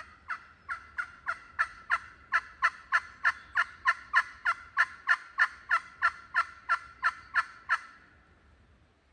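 A long, even run of turkey yelps, about three notes a second, growing louder over the first two seconds and stopping about eight seconds in.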